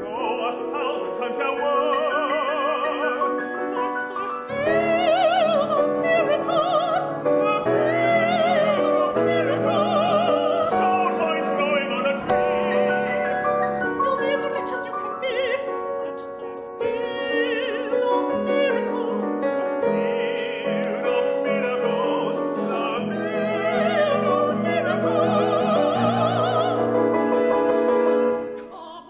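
Opera singers singing with vibrato over piano accompaniment.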